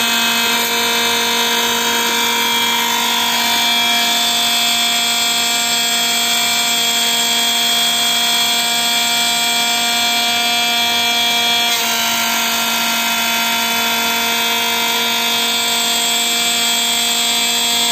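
Automatic glass-tube cutting machine running, its diamond cutting wheels cutting bundled soda-glass tubes: a loud, steady machine whine with several steady tones, easing slightly about two-thirds of the way through.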